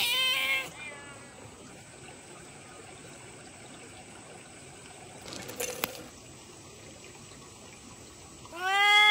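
A tabby cat meowing, the call ending just under a second in. Then a faint, steady background with a short scuffing noise about halfway, and a long, loud cat meow near the end.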